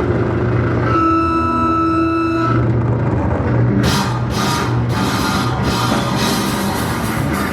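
Live rock band playing loud: a droning low guitar and bass wash, with one sustained ringing note held for about a second and a half near the start, then drums and cymbals crash in about four seconds in and the full band plays on.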